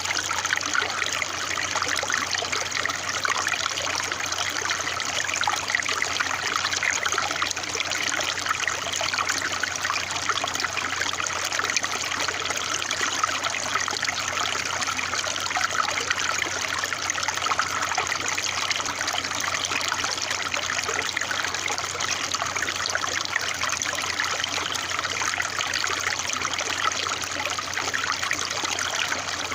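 Running water trickling steadily, a dense, even patter of small splashes with no pauses.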